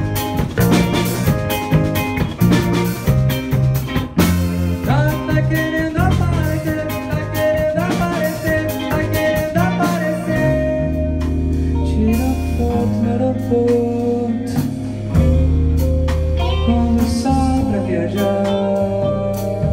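Live rock band playing: drum kit, bass guitar and electric guitar. About halfway through, the busy drum pattern drops back and the bass holds long low notes.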